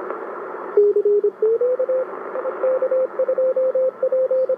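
Morse code (CW) signal from a distant station through a President Lincoln II ten-metre transceiver's speaker over receiver hiss. The note slides up in pitch about a second and a half in as the clarifier is turned back toward centre, then keys on and off at one steady pitch.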